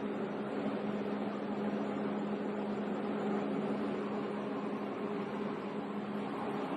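200 kW diesel generator running steadily under load together with the load bank's cooling fan: a constant hum over an even rush of air.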